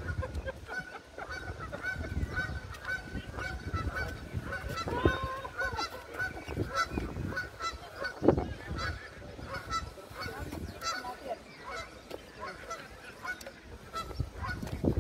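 Geese honking, many short calls in quick succession with several birds overlapping.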